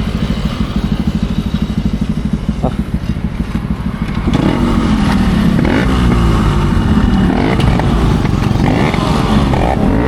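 Motorcycle exhausts: an engine idling with an even, pulsing beat, then about four seconds in it gets louder as several engines rev, their pitches rising and falling over one another.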